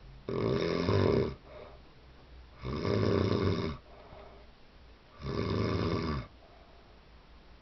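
A person snoring in sleep: three snores, each about a second long, coming roughly every two and a half seconds.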